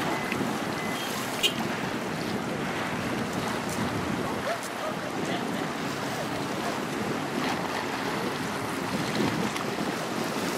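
Wind buffeting the microphone over choppy, whitecapped water, with small waves breaking and splashing in a steady rush.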